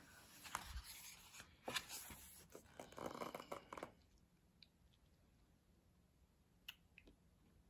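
Thick paper pages of a hardcover book rustling and sliding as a page is handled and turned over, with a few soft taps, stopping about four seconds in. A couple of faint ticks follow near the end.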